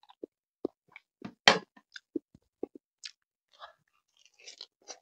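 Close-miked mouth sounds of biting into and chewing grilled chicken inasal: scattered short wet smacks and clicks, with one louder crunching bite about one and a half seconds in.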